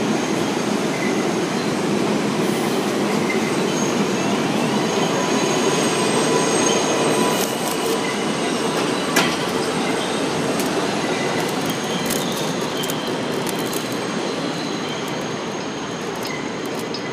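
New York City Subway R188 7 train pulling out of an elevated station, its wheels running on the rails with faint high squealing tones, slowly fading as it moves away. A single sharp click about nine seconds in.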